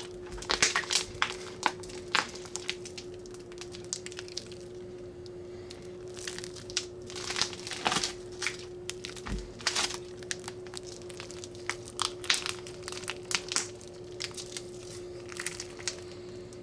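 Slime being squeezed and worked by hand, making irregular sticky pops and crackles, over a steady background hum.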